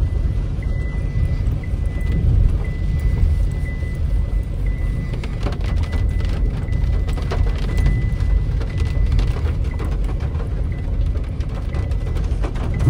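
Steady low road and engine rumble inside a moving Chevrolet Cruze's cabin, with a faint steady high whine.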